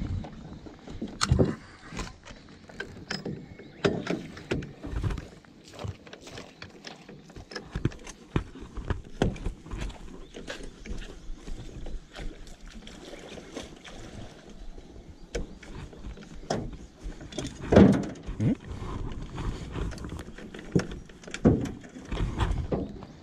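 Irregular knocks, clunks and rattles of gear being handled on the deck of a Wizard 330 aluminium boat as the bow-mount electric trolling motor is moved about by hand, with the loudest thump about eighteen seconds in.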